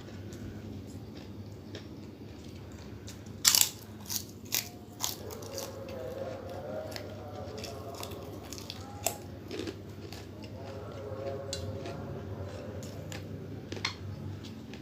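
A person chewing and biting crunchy food close to the microphone, with several sharp crunches; the loudest comes about three and a half seconds in, with a quick cluster right after it and single crunches near the middle and near the end.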